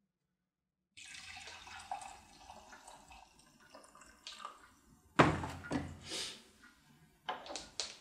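Liquid poured into a mug at a kitchen table, with a sudden loud clunk about five seconds in and two shorter knocks near the end as things are set down.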